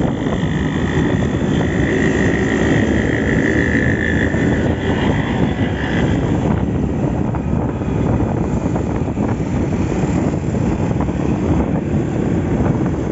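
Motorcycle riding on a busy road: the engine runs and wind rushes over the phone's built-in microphone. A high steady tone sounds for about three seconds near the start.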